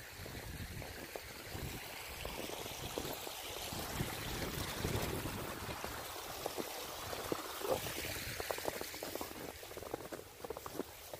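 Footsteps crunching through snow, with an even hiss that swells through the middle and fades near the end.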